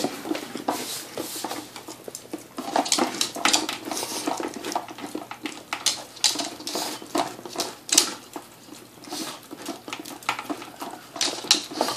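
Small dog eating wet food out of an Aikiou Junior slow-feeder bowl: irregular clicks and knocks of muzzle and teeth against the hard plastic lid and compartments.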